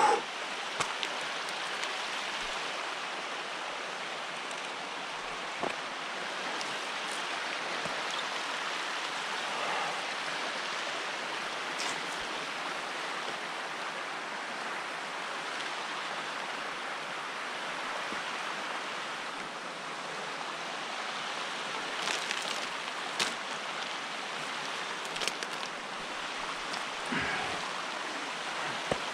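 A steady rushing hiss, with scattered short clinks and knocks from a steel chain handrail and hands on rock.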